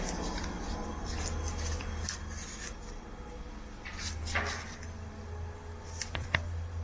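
Scattered knocks and clicks, like doors or furniture being handled, with two sharp clicks near the end, over a steady low hum.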